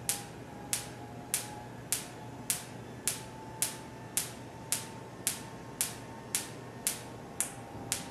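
Sparks from a Van de Graaff generator's dome snapping across to the ball electrode of a wire-mesh Faraday cage: sharp cracks at a steady pace of about two a second, the dome discharging each time it has charged up again.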